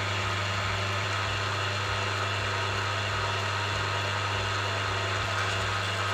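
Milling machine running steadily as its spindle drives a drill bit through a brass bar, a constant machine hum.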